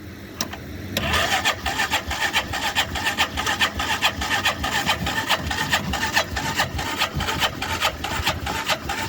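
Electric starter cranking the Hisun side-by-side's engine over, starting about a second in and turning over in an even pulsing rhythm with ether sprayed into the air cleaner; the engine does not fire.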